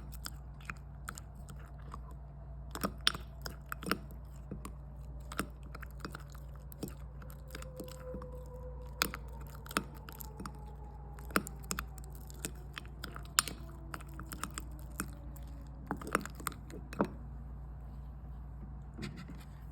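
Irregular sharp clicks and taps, a few much louder than the rest, over a low steady hum: small objects and containers being handled while making slime.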